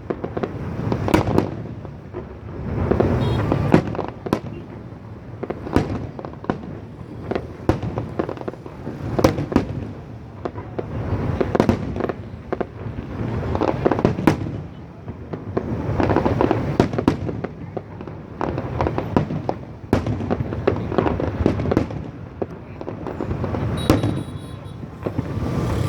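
Fireworks display: a continuous run of sharp bangs and crackling shell bursts, swelling and easing every couple of seconds.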